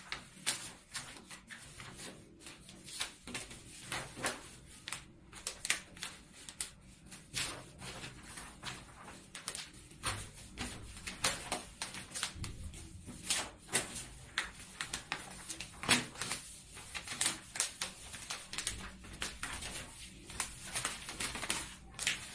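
Stiff gold and pink decorative paper crinkling and rustling as two sheets are folded and pinched together by hand, with many short, irregular crackles.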